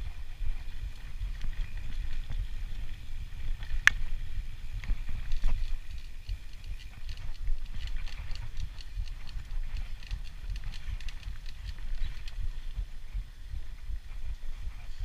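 Mountain bike riding fast down a rough, rutted dirt trail: a steady low rumble of tyres and wind with the bike rattling and clicking over the bumps, and one sharp click about four seconds in.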